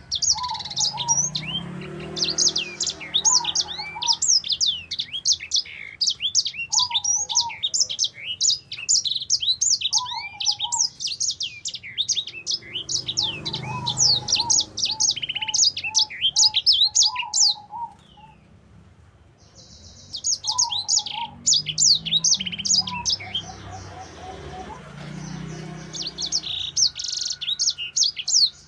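Caged sanger finch singing a rapid, high-pitched song of quick trills and chirps, breaking off briefly about two-thirds of the way through, then resuming.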